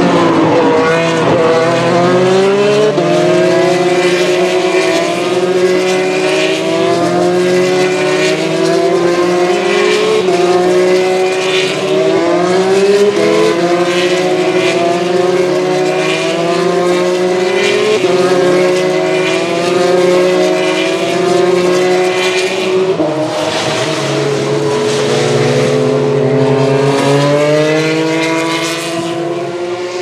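Formula 3 cars' naturally aspirated V6 engines at full throttle, several at once, lapping past. Each engine note climbs and drops back at every upshift, over and over, with a deeper, lower-pitched run starting near the end.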